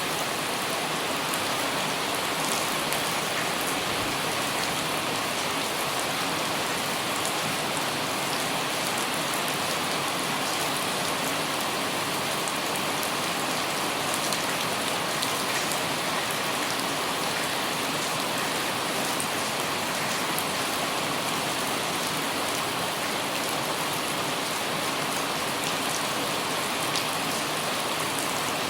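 Light rain falling steadily on an umbrella: an even hiss with scattered individual drop ticks.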